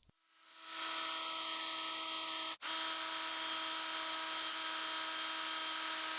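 Electric drill spinning a bore brush inside the holes of a Hi-Lift jack's parts: a steady motor whine with brush scrubbing, building up over the first second and cutting out for an instant about two and a half seconds in.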